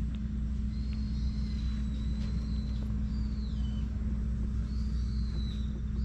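Steady low outdoor rumble, with a bird's thin, high whistling calls over it several times, some held and some sliding downward.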